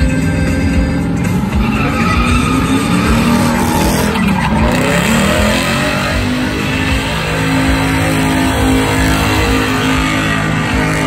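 Pickup truck engine revving hard while the truck spins donuts in dirt with its wheels spinning; the revs dip and climb again about four seconds in.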